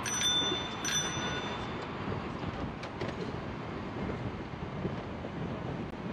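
Bicycle bell rung twice, about a second apart, each ring a bright ding that fades within half a second. Steady wind and road noise from the moving bike runs underneath.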